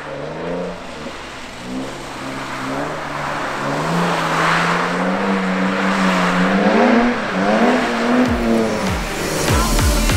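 Drift car's engine revving, its pitch wavering and climbing, with tyre hiss swelling about halfway through. Electronic music with a heavy beat comes in near the end.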